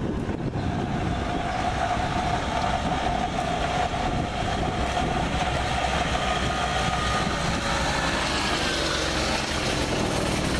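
Steady, distant vehicle engine noise with a held whining tone for several seconds, giving way near the end to fainter tones that slide in pitch.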